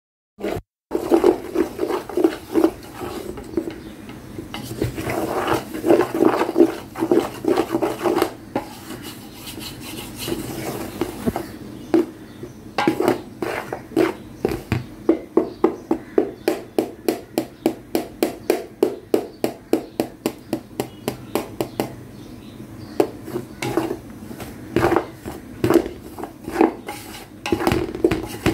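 A black spatula stirring and scraping through a whole-wheat flour mixture in a stainless steel pot, in repeated strokes against the metal. The strokes come fastest and most even in the middle, about three scrapes a second.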